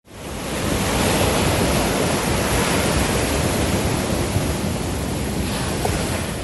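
Sea surf: small waves breaking and washing in, a steady rush of noise that fades in at the start.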